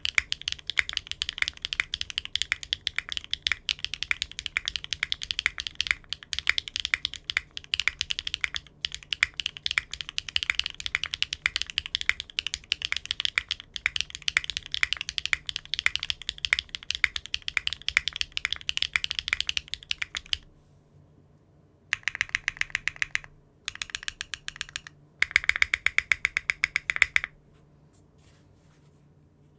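Fast typing on a mechanical keyboard fitted with Cherry-profile keycaps: a dense run of key clacks for most of the time, then three short bursts of typing with silent breaks between them.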